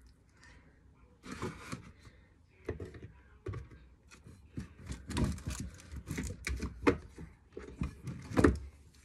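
A run of irregular knocks, clunks and rustling as parts and things on a workbench are handled and set down, with the loudest knock near the end.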